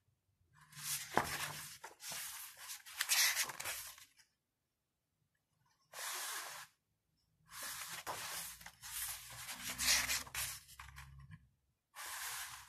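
Pages of a glossy photobook being turned and handled, the paper rustling in several bursts with short pauses between.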